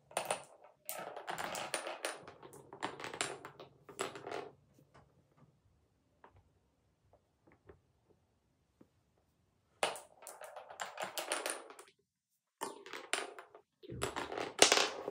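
Marbles rolling and clattering through the carved grooves and tunnels of a Cuboro wooden block marble run, with many quick clicks as they hit the wood. There are three runs of a few seconds each, with a quiet gap of about five seconds between the first and the second.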